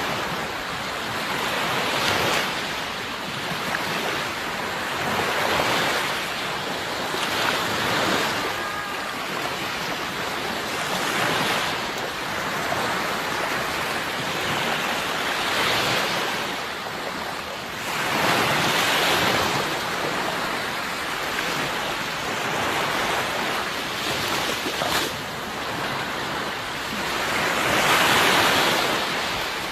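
Sea waves surging and washing onto the shore, a steady hiss of surf swelling every few seconds, with the biggest surges about two-thirds of the way through and near the end.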